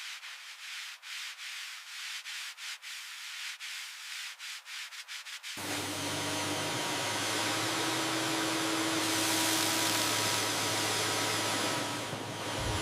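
Abrasive rubbing noise from restoration work on a car. For the first half it is a thin scratchy hiss broken by many quick clicks; about halfway in it turns into a louder, steady rushing hiss.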